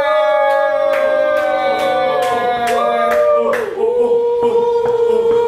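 Singing voices holding long, slowly falling notes over a steady beat of sharp claps or taps, about two a second; the beat fades out about halfway through while the singing carries on.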